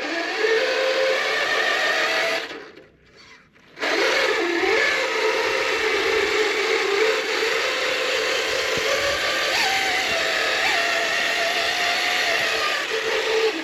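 1/10-scale RC crawler's electric motor and gearbox whining as it drives, the pitch wavering with throttle. It stops for about a second near the three-second mark, then runs again.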